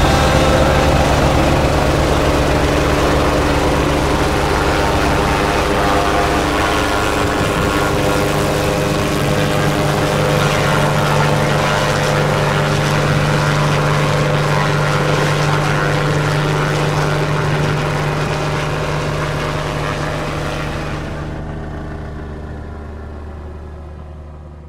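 A small helicopter's engine and rotor running steadily as it lifts off and flies. The sound fades out over the last few seconds.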